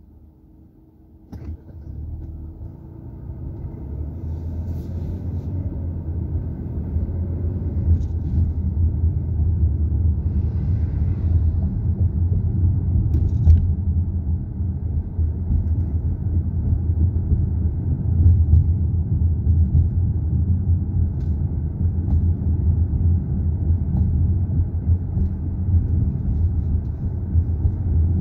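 Low rumble of a car driving, heard from inside the cabin. It starts about a second and a half in, builds over the next few seconds as the car gets moving, and then runs steadily.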